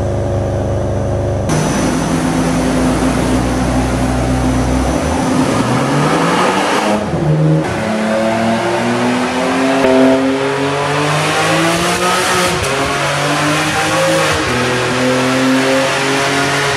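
Ferrari 599 GTB's V12 engine revving hard on a chassis dyno. It starts near idle, then climbs and falls back again and again.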